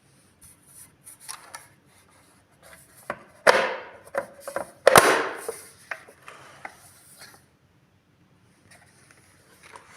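Hard plastic parts of a Miele vacuum cleaner being handled: scattered clicks and rubbing, with two louder clacks about three and a half and five seconds in.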